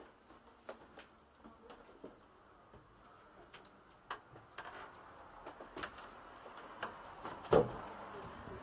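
Footsteps climbing wooden stairs, heard as irregular knocks and taps, with one loud wooden thump near the end. A steady background hiss grows louder in the second half.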